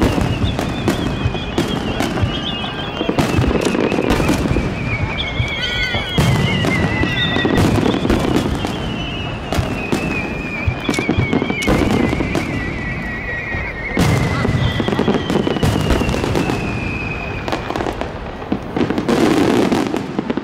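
Fireworks display: a rapid, continuous barrage of shell bursts and crackling, overlaid by long whistles that slide slowly down in pitch, a new one starting every few seconds.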